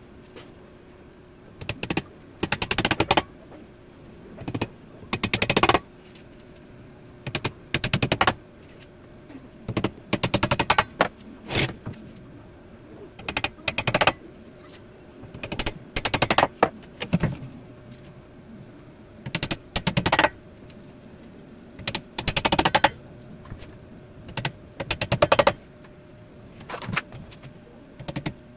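Cordless power driver driving screws into plywood in repeated short bursts of rapid clattering impacts, often a brief burst then a longer one, every couple of seconds.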